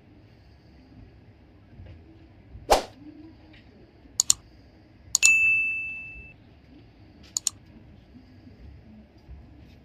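A dull thud, then sharp clicks in quick pairs and one metallic ding that rings and fades over about a second, over faint steady background noise.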